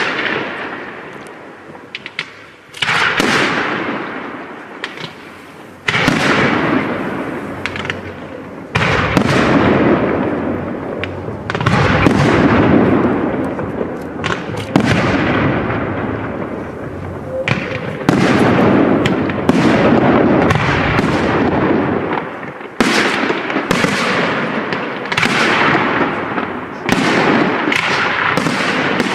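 Aerial firework shells bursting one after another at a display: about ten sharp bangs a few seconds apart, each followed by a long, slowly fading rumble, with scattered crackles between them.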